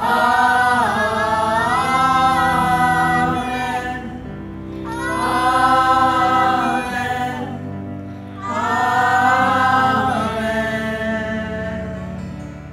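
Mixed choir of adults and children singing three long, slow phrases in unison and harmony, with steady low notes held underneath.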